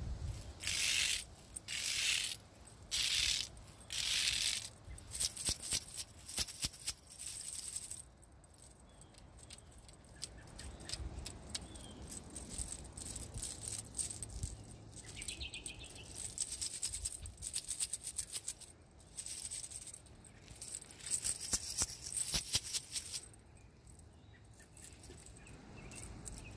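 Anodized aluminum scalemail gauntlets jingling as the arms are shaken and moved: four sharp bursts of metallic clinking about a second apart at the start, then looser clicking and further bursts of jingling later on.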